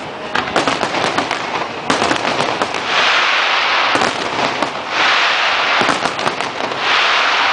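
Aerial fireworks bursting in quick succession: a steady run of sharp bangs, with stretches of dense crackling beginning about three, five and seven seconds in.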